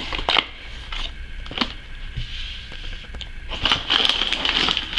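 Cardboard toy box being opened by hand: scattered clicks and taps of the flaps, then plastic bags crinkling from about three and a half seconds in.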